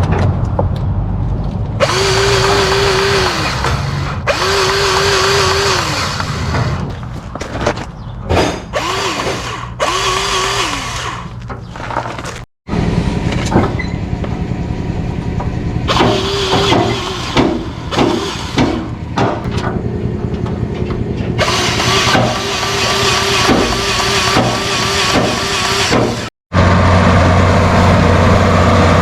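A machine whining in repeated bursts of a second or two, each rising in pitch, holding, then falling away, over a steady engine, with clattering between bursts. After a sudden cut near the end, a heavy engine runs steadily at idle.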